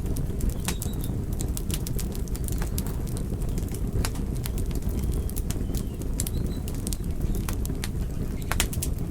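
Log fire burning: a steady low rumble of flames with frequent sharp crackles and pops from the wood.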